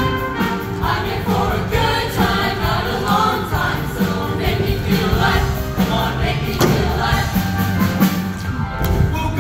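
Show choir singing in chorus over a live band accompaniment with a steady beat.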